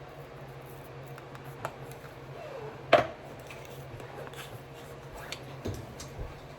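Spice containers handled on a kitchen counter while meat is seasoned: scattered light clicks and taps, with one sharp knock about three seconds in, over a steady low hum.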